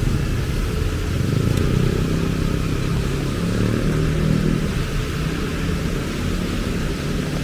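Motor vehicle engine running close by with a low, steady hum, over the even hiss of heavy rain.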